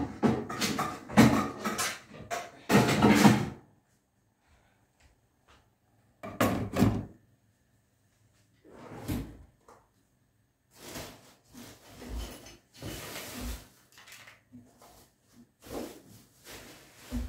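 Kitchen clatter: pots, lids and utensils being handled and set down, in several bursts with short pauses, loudest in the first few seconds.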